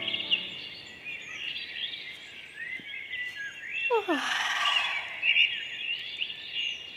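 Small songbirds chirping and trilling continuously in a garden. The last chord of the intro music dies away in the first half-second, and about four seconds in a short voice-like sound glides steeply downward.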